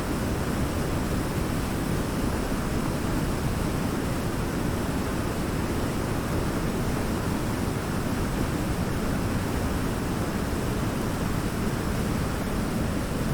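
Waterfall pouring: a steady, deep rushing of falling water, even throughout.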